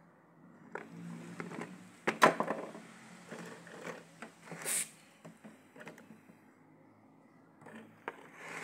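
Handfuls of fresh turmeric rhizomes dropped into a plastic basket: a clatter of knocks and bumps, loudest about two seconds in, then a brief rustling scrape and a few more scattered knocks near the end.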